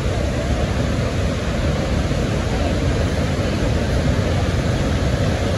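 Niagara's Horseshoe Falls: a steady, loud rush of water plunging over the brink and into the gorge, heaviest in the deep low end.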